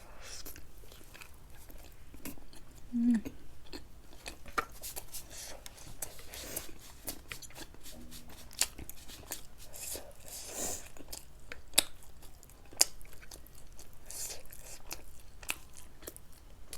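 Close-miked chewing and mouth sounds of someone eating, with many sharp smacks and clicks and a short low tone about three seconds in.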